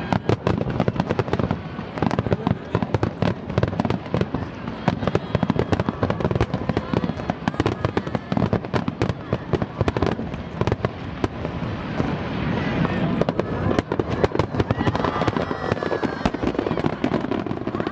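Large fireworks display: a dense, continuous barrage of shells bursting, many bangs and crackles a second, with faint voices of the crowd underneath.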